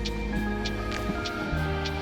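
Background music with a steady beat: sustained bass and held synth notes under regular percussion hits.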